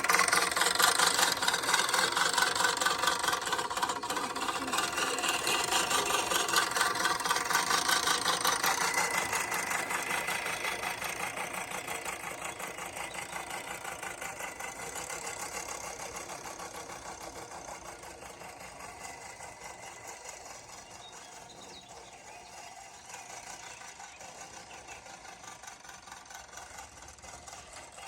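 Sun Joe lawn mower running, its motor and blade cutting grass into the bagger. Loudest at first, it fades gradually over several seconds as the mower is pushed farther off, then runs on at a lower, steady level.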